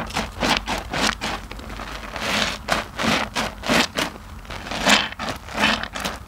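A soap-soaked IKEA loofah squeezed and wrung by hand: repeated wet squelches, irregular, about one or two a second, with the crackle of lather.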